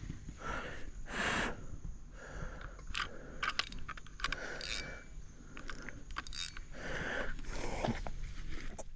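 Irregular scraping, rustling and crunching with sharp clicks scattered through, typical of close handling of gear or movement through brush.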